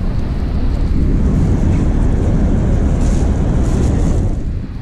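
Wind buffeting the microphone on the open deck of a tour boat under way, a loud steady rumble over the noise of the boat and the churning water, easing briefly near the end.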